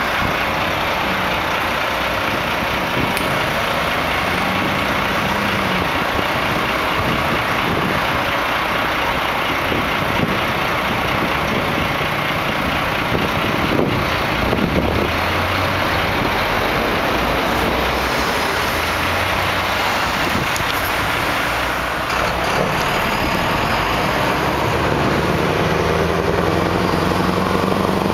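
Steady road traffic noise of trucks and cars passing on a multi-lane road. In the last few seconds a Scania 164L's V8 diesel engine comes closer, its low engine note rising and growing stronger.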